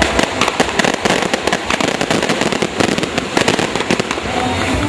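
Buscapé and barco de fogo fireworks burning: dense, rapid crackling and popping over a continuous rush.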